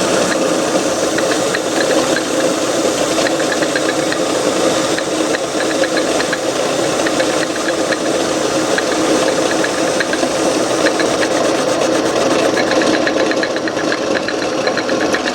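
Antique Garvin metal lathe running steadily while a cutting tool faces the end of a metal workpiece: a continuous machine hum under the noise of the cut.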